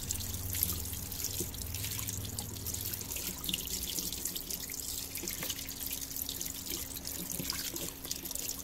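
Tap water running into a washbasin and splashing over a smartphone held under the stream, with irregular spatters and drips.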